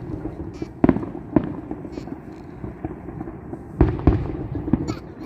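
Fireworks going off: about six sharp bangs at uneven intervals, two of them close together about four seconds in, over a steady low rumble.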